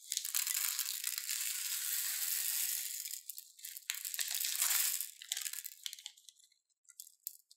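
Small red beads rattling out of a snipped-open plastic piping bag into a bowl, mixed with the crinkle of the plastic bag. The stream is dense for about three seconds, comes again briefly, then thins to scattered clicks as the last beads and a few acrylic gems are shaken out.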